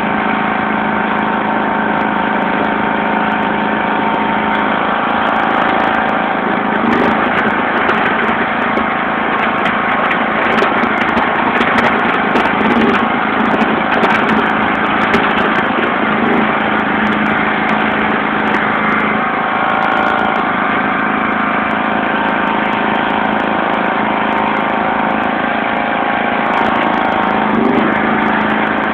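John Deere LX176 lawn tractor's 14 hp OHV engine running steadily while the tractor pushes snow with its front blade, its tone shifting slightly a few times. Occasional light clicks are heard over it.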